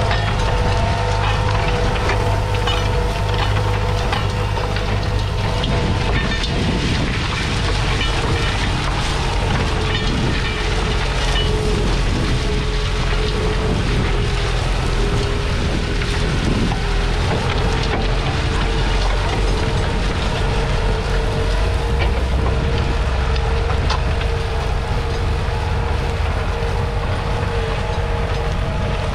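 Ford New Holland 7740's 5.0-litre four-cylinder diesel engine running steadily under load, pulling a four-furrow reversible plough, with a constant whine over the low engine rumble and a crackling noise on top.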